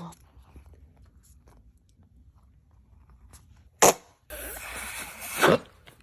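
Rubber whoopee cushion squeezed and blowing a fart noise: a buzzy, wavering blast lasting over a second near the end, after a few quiet rustles and one sharp click.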